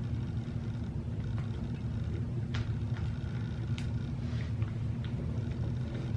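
A steady low hum, with a few faint clicks of metal spoons against ice cream cartons.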